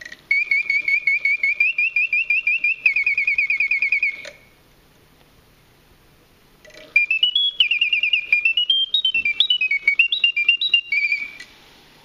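French Bontems clockwork singing bird automaton whistling its mechanical birdsong from a bellows-driven piston whistle. A fast warbling trill for about four seconds, a pause, then a second phrase of notes stepping and gliding up and down in pitch.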